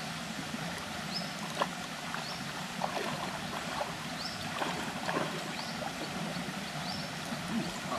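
Water splashing and sloshing in a shallow pool as an elephant is bathed, in irregular bursts over a steady wash of noise. A short high chirp repeats about once a second in the background.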